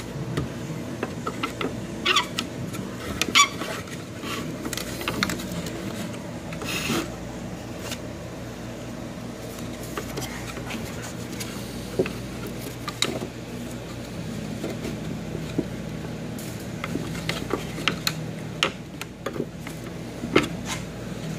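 Plastic tool-holder fingers of a Bridgeport Torq-Cut 22 carousel tool changer being pushed and worked by hand into their interlocking slots, giving irregular clicks and plastic-on-plastic rubbing over a steady low hum.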